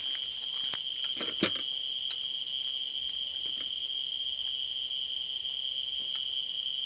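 A cricket trilling on one steady high note, with a few crackles and one sharp snap about one and a half seconds in as dried fish is pulled apart by hand.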